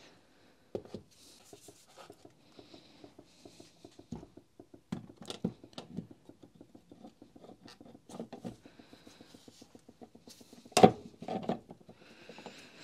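Plastic motor housing of a Makita HR5001C rotary hammer, with its stator, being worked down over the armature onto the metal gear housing: light scraping and many small clicks, with one sharper knock near the end.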